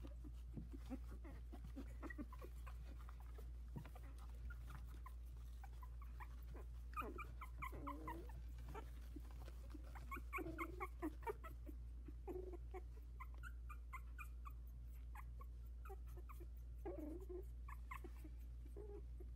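Young Havanese puppies, about two weeks old, whimpering in short high squeaks. The squeaks come in several brief bouts, the busiest around the middle, over faint scuffling clicks.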